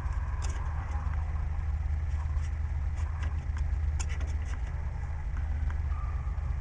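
Engine idling with a steady low rumble, with scattered small clicks and taps over it.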